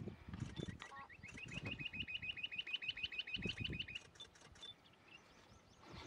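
Rock bush-quail calling: a rapid run of short, upward-flicking piping notes, about eight a second, starting about a second in and lasting about three seconds. Low rumbling sits underneath near the start and again near the end of the run.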